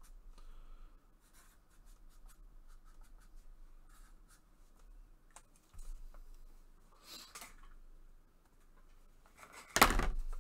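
Light rubbing, scratching and small clicks of hands handling small objects at a desk, with a soft rustle about seven seconds in. A loud sudden thump and rustle come near the end.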